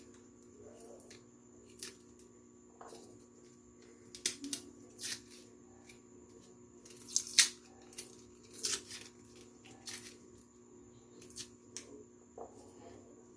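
Dry papery garlic skins crackling and tearing as cloves are broken off a garlic head and peeled, in irregular sharp snaps, a few louder ones about four and seven seconds in, over a steady low hum.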